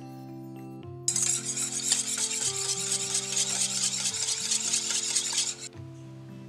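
Pancake batter being cooked or mixed: a loud, uneven hiss about a second in that cuts off suddenly near the end, over soft background music.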